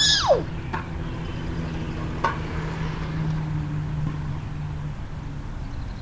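A vehicle engine running nearby with a steady low hum that swells around the middle and fades near the end. A short cry that rises and falls in pitch comes at the very start.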